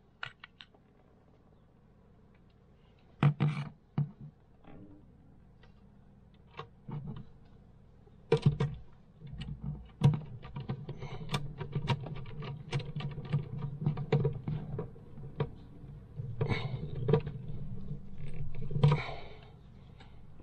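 Clicks, knocks and handling of hands and a screwdriver as a 12-volt USB and cigarette-lighter socket panel is fitted and wired to a solar charge controller. There are several louder knocks, and a denser run of small clicks from about eight seconds in until near the end.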